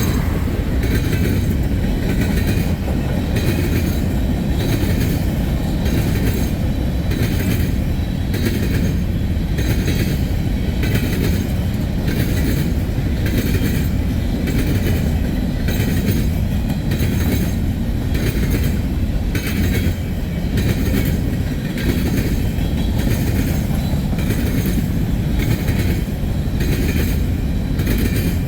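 Empty grain hopper cars of a freight train rolling past at close range: a steady rumble with a regular clickety-clack of wheels over the rail joints.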